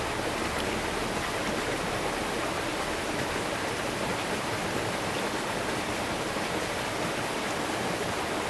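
Steady rush of running water, an even hiss with no breaks or separate sounds.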